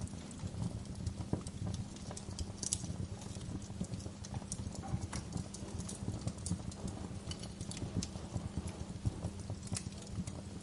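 Wood fire crackling in a fireplace: dense, irregular pops and snaps over a low, steady rumble of the flames.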